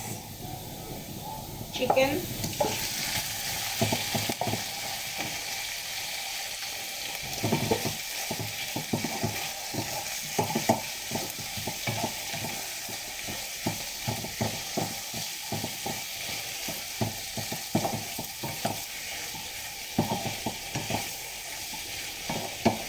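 Chicken frying with garlic and onion in a hot pan: a steady sizzle that grows louder about two seconds in as the chicken goes into the oil, while a spatula stirs and scrapes against the pan in frequent short strokes.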